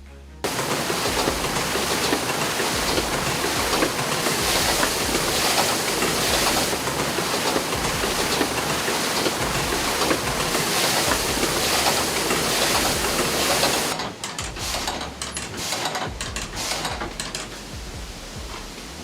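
Water-powered sawmill running: a loud, steady rush of water and machinery noise that cuts in suddenly. About fourteen seconds in it drops lower and turns uneven.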